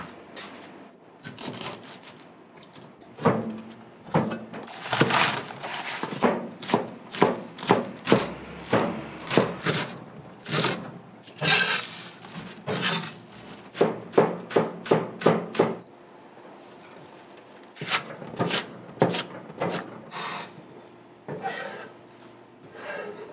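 Kitchen knife chopping green onions on a cutting board: a run of sharp chops about two a second, a short pause, then more chops.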